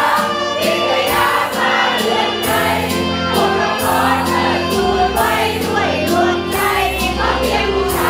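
Music with a group of voices singing over a steady beat of about two strokes a second and held bass notes.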